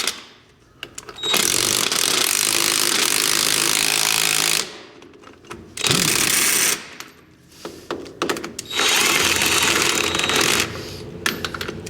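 Power impact wrench hammering in three bursts, the longest about three seconds, running nuts down onto the studs of a tractor hydraulic pump.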